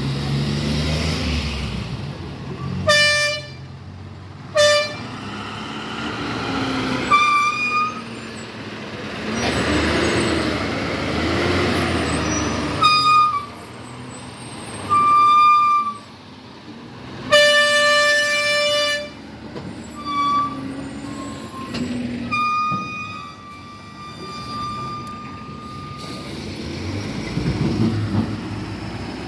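Truck horns sounding again and again at different pitches, mostly short blasts with a couple of longer held ones, over the low running of heavy lorry engines.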